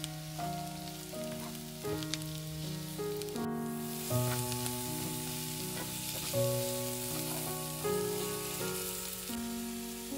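Food sizzling as it fries in hot oil, a steady hiss that starts suddenly about three and a half seconds in. Gentle piano background music plays throughout.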